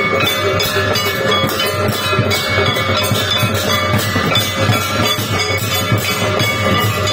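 Temple aarti percussion: a metal gong or bell struck fast and continuously with a wooden mallet, ringing together with drums in a dense, unbroken clatter.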